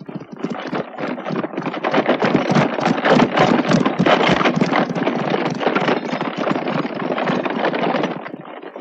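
Horse-drawn carriage on the move: a dense clatter of hooves and wheels that builds over the first few seconds and falls away near the end.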